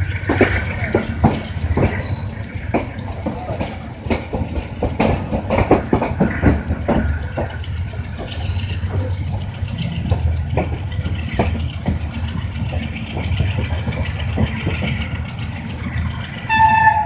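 Moving passenger train heard from a coach window: a steady low rumble of the running gear, with many sharp clacks of the wheels over the rail joints, thickest in the first half. A short, single-pitched train horn blast sounds just before the end.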